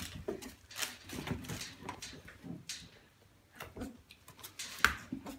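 Border collie puppies playing on a tile floor: scattered clicks and knocks of paws and plastic toys, with a few brief small puppy sounds and one sharper knock near the end.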